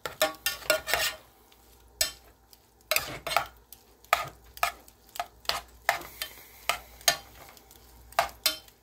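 A metal spoon stirring cooked white rice in a pot, scraping and clicking against the pot's sides and bottom in short, irregular strokes.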